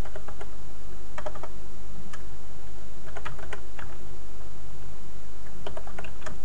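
Computer keyboard keystrokes, typing out text a few letters at a time in short irregular bursts with pauses between. A steady low electrical hum runs underneath.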